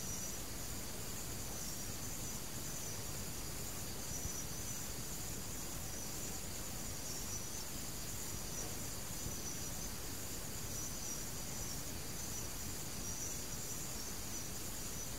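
Steady hiss of an old recording, with crickets chirping continuously in a high band behind it.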